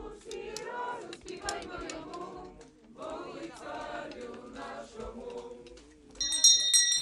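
A group of voices singing unaccompanied, in two phrases with a short break between them. Near the end a louder, high, steady ringing sound cuts in.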